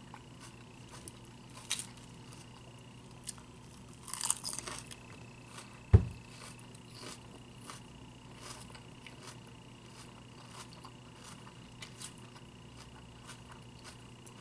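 Close-up chewing of crunchy lettuce salad: faint crisp crunches scattered throughout. A brief rustle about four seconds in and a single low thump about two seconds later.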